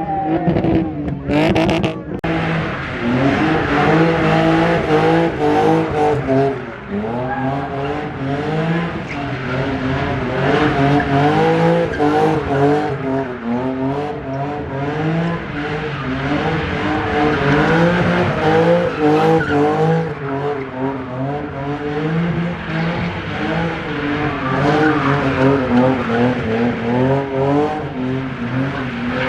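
A car drifting: the engine's revs rise and fall in quick repeated swings over a steady screech of sliding tyres. A few sharp cracks sound about a second in.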